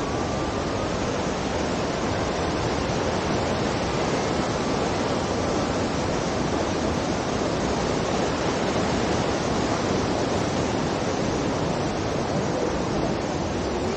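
Fast-flowing mountain stream rushing steadily.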